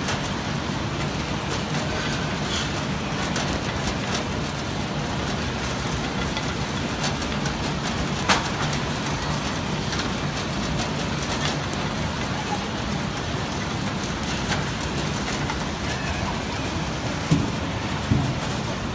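Orange packing-line machinery running steadily: conveyors and a roller sorter with oranges rolling and bumping along, over a low motor hum. A few sharp knocks stand out, one about midway and two near the end.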